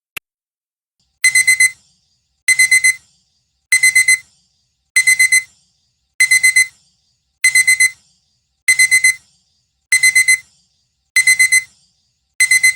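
A last clock tick, then a digital alarm-clock beeper going off as the countdown reaches zero: groups of four quick, high beeps repeating about every second and a quarter.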